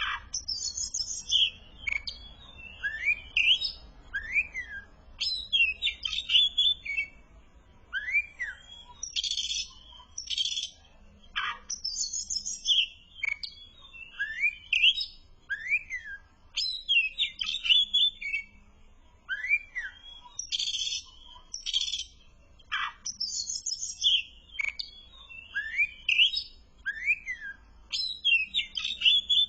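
Oriental magpie-robin (kacer) singing in full, continuous song: short rising-and-falling whistled notes every second or two, mixed with fast, high chattering phrases.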